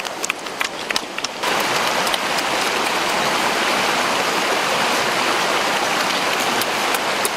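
Wet mouth clicks and smacks of someone eating by hand, close up, for about the first second and a half. Then a shallow rocky stream rushes steadily.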